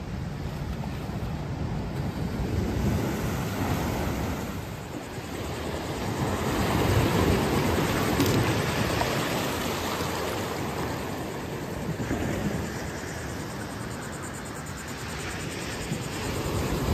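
Ocean surf breaking on the shore and against a seawall, rising and falling every few seconds, with wind rumbling on the microphone.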